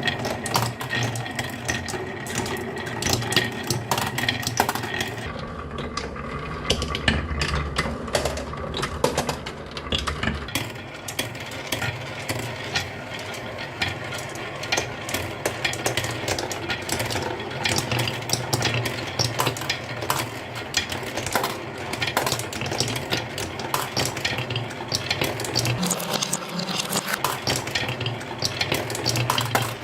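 Many marbles rolling and clicking along a marble run, a continuous clatter of small hard knocks over a low rolling rumble.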